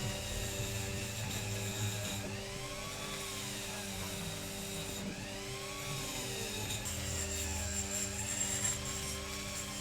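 Motor-driven rotary wire brush running steadily against a diecast metal toy casting, wire-brushing it clean. A steady hum and scratchy hiss, with a slow rise and fall in pitch about every three seconds.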